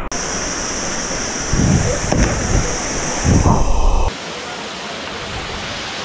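Waterfall rushing steadily into a pool, with two low rumbles about a second and a half and three and a half seconds in. About four seconds in it drops to a softer, duller rush.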